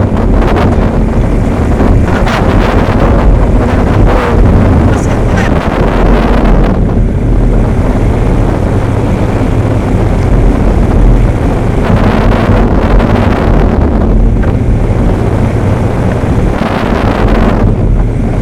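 Wind buffeting the microphone: a loud, steady, low rumbling noise.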